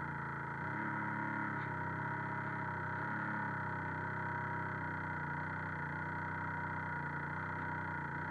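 Radio-controlled boat's motor running at a steady speed, a constant whine of several held tones, picked up by the camera riding aboard the boat.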